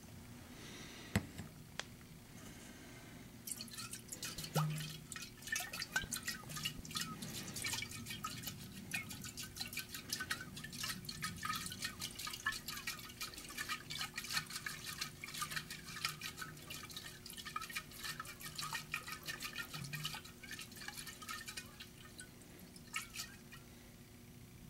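Gasoline and water being swirled and sloshed together in a glass round-bottom flask, mixing the water in to draw the ethanol out of the fuel. The rapid splashing starts a few seconds in and stops near the end, after a single sharp click about a second in.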